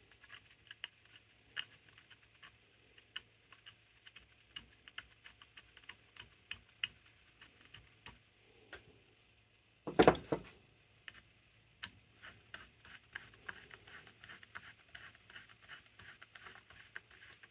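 Small metal parts and tools clicking, tapping and scraping as a choke vacuum pull-off is fitted to a Carter Thermoquad carburetor, with one louder clunk about ten seconds in.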